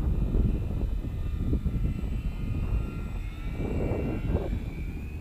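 Twin small electric motors and propellers of an RC foam glider whining as it flies past overhead, the pitch shifting as it goes by. Wind rumbles on the microphone underneath.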